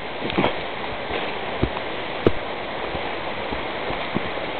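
Steady rush of a nearby waterfall and stream, with a few scattered knocks of footsteps on the trail.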